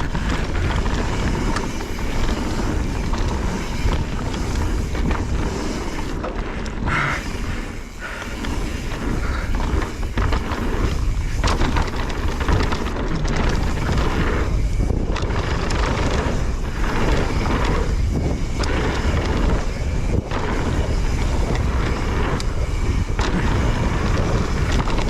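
Mountain bike riding down a dirt trail: a steady rush of wind on the microphone and tyre rumble, with a few brief dips.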